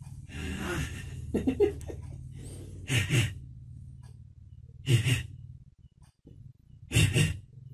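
Young child making breathy huffs and puffs: a short vocal sound, then three sharp breathy bursts about two seconds apart.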